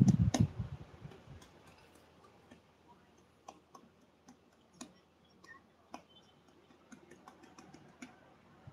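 A voice trails off in the first moment, then faint, irregular short clicks and ticks, a couple of dozen spread unevenly over near-quiet room tone.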